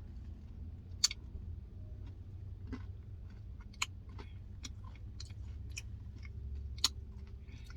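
A person eating a soft-serve Blizzard with small crunchy candy pieces in it: quiet chewing and scattered small mouth and spoon clicks over a steady low hum.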